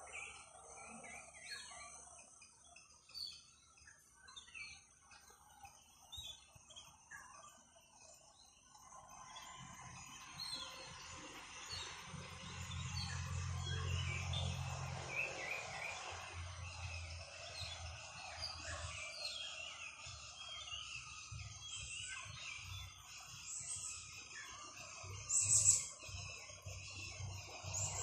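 Small birds chirping, many short high notes one after another. From about a third of the way in a low rumble rises underneath, strongest around the middle, and a single sharp high-pitched note stands out near the end.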